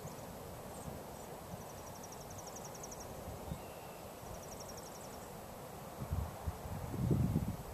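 Open-field ambience: a steady rush of wind with two high, rapidly pulsed trills, of roughly fifteen pulses a second. Near the end, low rumbling gusts buffet the microphone.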